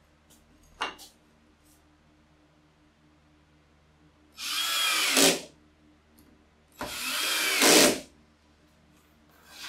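Cordless drill driving two screws one after the other, each run about a second long, fastening a wooden piece to a plywood lid; the motor strains and gets loudest just as each screw seats. A small wooden knock comes about a second in.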